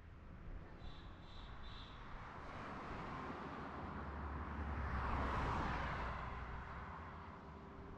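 A car driving past on the highway, its tyre and engine noise swelling to a peak about five seconds in and then fading away. Three short high chirps sound about a second in.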